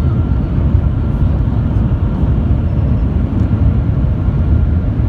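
Steady deep rumble of cabin noise inside the Shanghai Maglev train running at speed.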